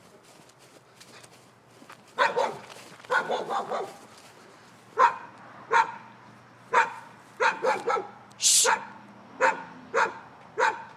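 Dog barking repeatedly, starting about two seconds in: a few clustered barks, then single sharp barks every half second to a second.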